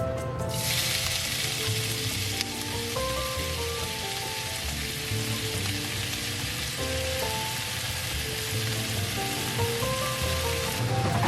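Food sizzling in a hot frying pan as a steady hiss, starting suddenly about half a second in and cutting off near the end, over soft background music.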